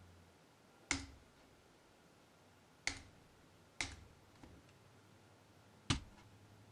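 Four separate computer mouse clicks, one or two seconds apart, over faint room tone.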